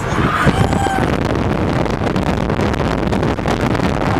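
A car driving at highway speed: steady road and wind noise, with wind rushing over the microphone.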